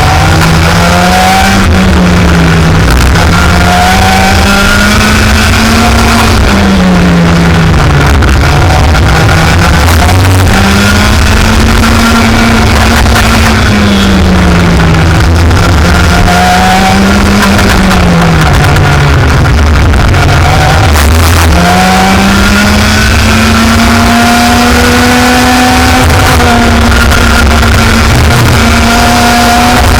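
Racing kart engine running at full load, its pitch climbing through each straight and dropping sharply as the driver lifts for corners, several times over. It is very loud and continuous.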